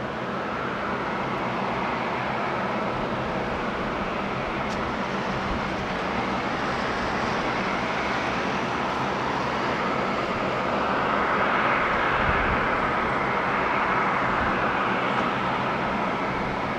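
Three General Electric CF6 turbofans of a McDonnell Douglas MD-11F freighter running, heard from a distance as a steady rushing hum with a low rumble beneath. It grows a little louder about eleven seconds in.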